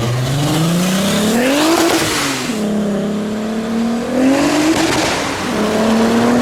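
A car engine accelerating hard: the revs climb steeply, drop and hold, then climb again twice more, with a hiss of wet tyres swelling during the hardest pulls.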